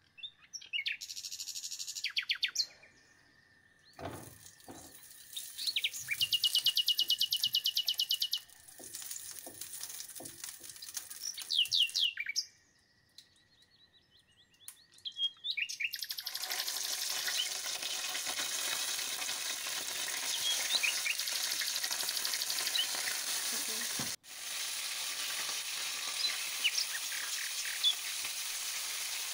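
Birds chirping, with a quick trill in the first half. About halfway through, hot oil in a frying pan starts sizzling steadily as chunks of raw lamb are dropped in, and the birds go on chirping over the sizzle.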